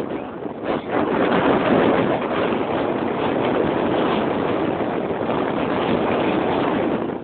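Steady rush of wind over the microphone from a moving motorcycle, mixed with the motorcycle's running engine and road noise.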